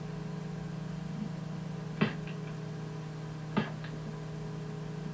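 Two sharp snaps of a staple gun fastening fiberglass insulation batts to wall framing, about a second and a half apart, over a steady low hum.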